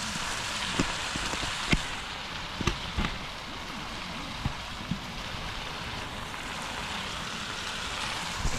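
Gopchang (beef or pork intestines) sizzling in hot fat as it cooks, a steady hiss broken by sharp pops and spits of fat every second or so.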